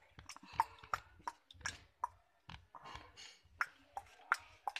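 Plastic toy pieces being handled, giving irregular light clicks and taps.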